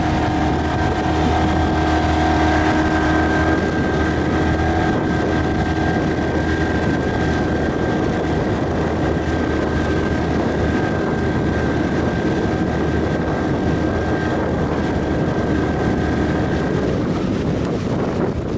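A motorboat's engine running steadily at speed, over rushing water and wind buffeting the microphone. The engine's steady note drops away near the end, leaving wind and water.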